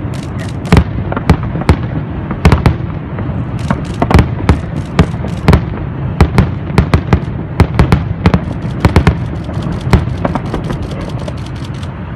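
Fireworks and firecrackers going off in an irregular string of sharp cracks and bangs, several a second and at times in rapid runs, over a continuous low rumble of further explosions.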